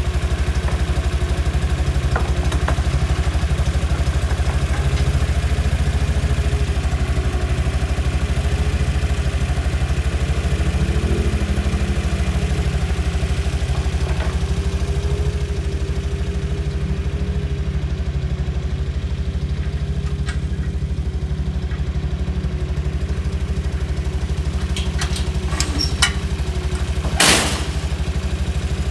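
A vehicle engine running steadily at an even pace, with a short sharp clack near the end.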